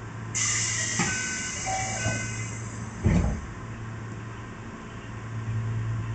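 The passenger doors of a Keihan 600-series railcar open at a station stop, starting with a sudden air hiss about half a second in that fades over the next few seconds. A few short electronic tones sound just after, and a heavy thud comes about three seconds in, over the steady low hum of the standing car.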